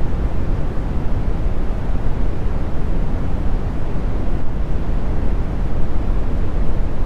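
Steady brown noise: an even, deep rumbling hiss with most of its weight in the low end, unchanging throughout.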